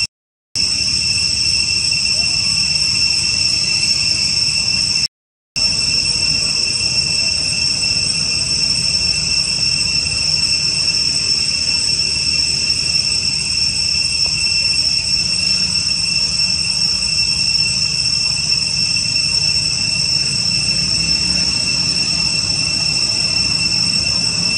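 Steady, loud insect chorus droning at two high pitches over a low rumble. It cuts out completely twice for about half a second, just after the start and about five seconds in.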